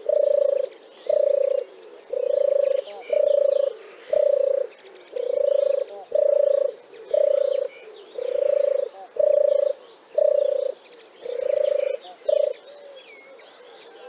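Turtle dove cooing: a long run of about a dozen evenly spaced low coos, roughly one a second, which stops about twelve and a half seconds in. Small birds chirp faintly behind it.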